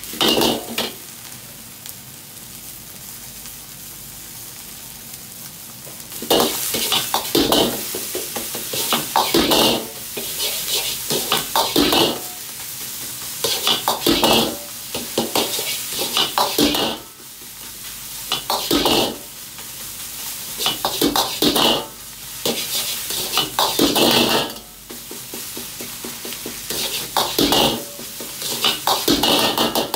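Fried rice with egg and pickled snow vegetable sizzling in an iron wok over a high-flame gas burner. From about six seconds in, a ladle scrapes and clanks against the wok in loud bursts every second or two as the rice is stir-fried and tossed.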